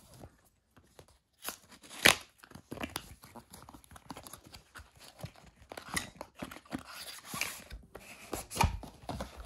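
Paperboard packaging being opened by hand: irregular rustling, scraping and sharp snaps of card flaps and a sleeve, the loudest snap about two seconds in.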